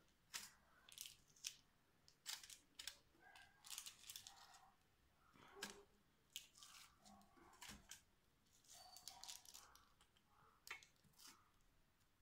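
Faint, irregular crackling of aluminium foil in an air fryer basket as pieces of raw cookie dough are pressed down onto it.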